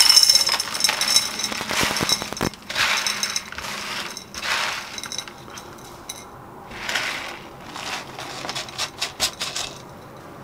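Horticultural grit pouring from a plastic tray into a terracotta pot, the small stones pattering and clinking onto the compost in a series of short pours a second or two apart, the first the loudest. Fingers stir the grit into the compost between pours.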